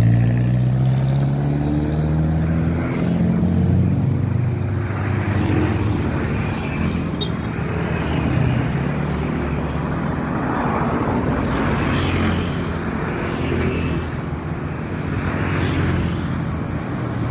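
Road traffic passing close by: vehicle engines over a steady hum, one engine rising in pitch near the start.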